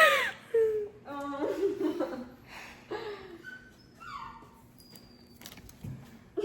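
Young women laughing and making short wordless vocal sounds, with quiet gaps between them.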